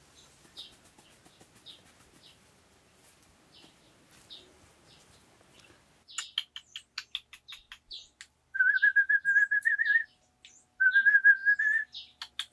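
Birds calling: faint scattered chirps at first, then from about halfway a fast run of loud sharp chirps and two long warbling whistles, the second following the first after a short gap.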